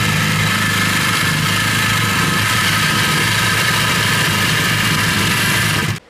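Handheld power tool running steadily as it cuts into the rusty steel bottom of a drum, with a continuous whine; it cuts off suddenly near the end.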